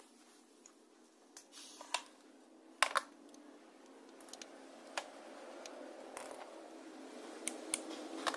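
Scattered sharp clicks and knocks, the loudest a quick pair about three seconds in, as an analog multimeter and its test leads are handled and set down on a hard tiled floor. A faint steady hum grows louder through the second half.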